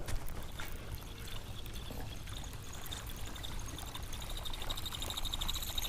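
Buzzbait retrieved across the water surface, its spinning blade churning the water with a fast, even rhythmic squeak that starts about two seconds in and carries on steadily.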